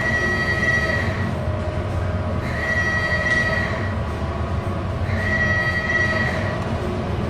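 Fire alarm sounder going off: a high tone about a second long, repeating roughly every two and a half seconds, over a steady low rumble.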